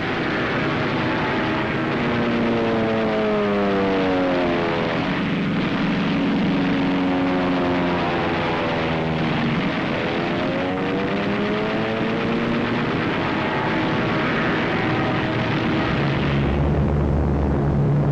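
Propeller aircraft engines droning on an old wartime film soundtrack, their pitch sliding down and back up several times as planes pass, with a deeper steady hum joining near the end.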